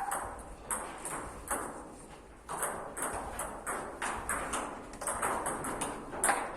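Table tennis rally: a celluloid-type ball ticking back and forth off paddles and the table, a quick run of sharp clicks about two to three a second, with a short pause about two seconds in before play picks up again.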